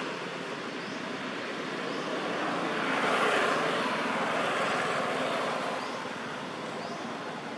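A vehicle passing by: a steady noise with no distinct engine note swells to a peak about three seconds in, then fades away.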